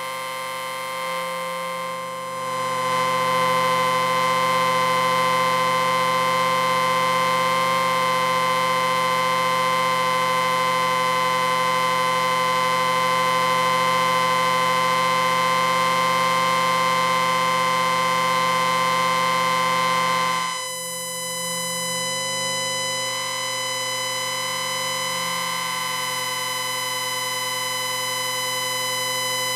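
Amplifier beep: a steady electronic whine made of many pitches sounding at once. It gets louder about two seconds in and shifts to a slightly quieter, changed mix of tones about twenty seconds in.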